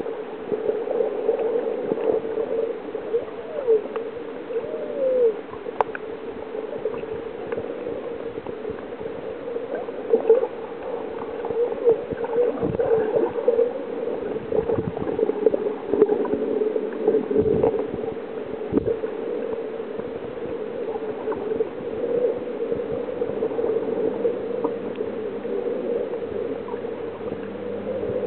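Muffled underwater noise picked up by a submerged camera: a steady watery rush with gurgles and scattered faint clicks.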